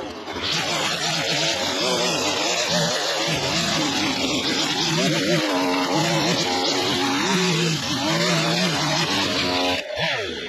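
Small two-stroke engine of a petrol garden tool, such as a line trimmer or hedge trimmer, running under load, its pitch wavering up and down with the throttle.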